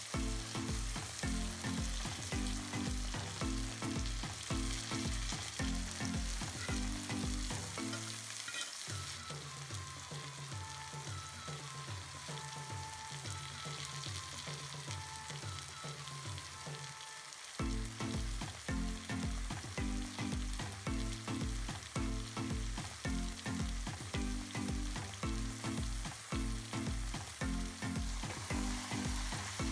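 Cabbage and vegetables sizzling as they fry in a wok, under background music with a steady beat. In the middle the music changes to a quieter passage of held bass notes.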